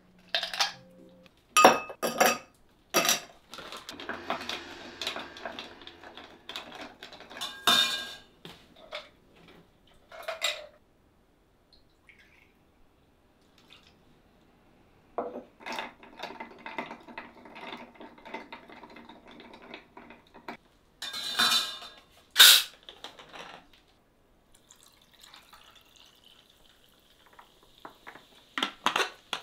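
A highball being mixed in a glass: sharp clinks of glass and ice, stretches of pouring, then near the end soda water poured in with a steady fizz.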